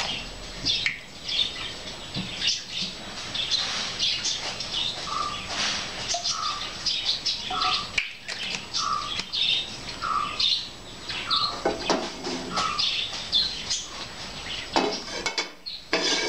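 Small birds chirping and twittering, with one bird repeating a short call roughly once a second for several seconds in the middle.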